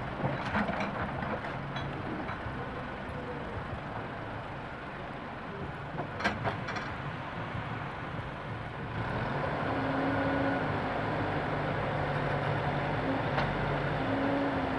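Backhoe loader's diesel engine running as it digs in a trench, getting louder about nine seconds in. A few sharp knocks come through, the clearest about six seconds in.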